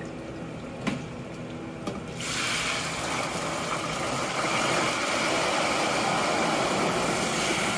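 Hot oil in a commercial deep fryer sizzling hard as a basket of ice cubes goes in, the water flashing to steam. It sets in suddenly about two seconds in after a couple of light metal clicks from the wire basket, then holds as a dense, steady hiss.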